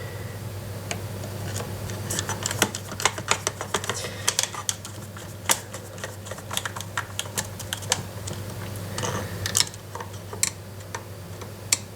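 Irregular small clicks and taps of a screwdriver and plastic and metal gun parts being handled while screws are driven into an airsoft rifle's pistol grip, over a steady low hum.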